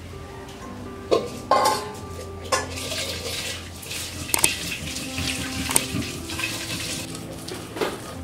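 Stone roller knocking against and grinding ridge gourd peels on a flat stone grinding slab (shil-nora): a handful of sharp stone-on-stone knocks spread through, with rasping scrapes in between, over background music with steady held notes.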